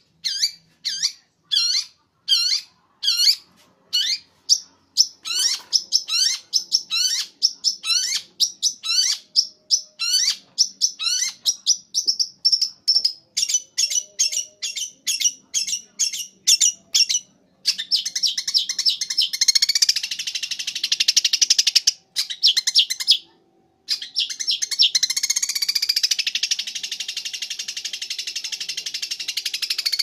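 Long-tailed shrike (cendet) singing. It starts with a run of short, sharply rising notes, about two a second and coming faster. About halfway through, this changes into a continuous fast chattering warble that breaks off once briefly.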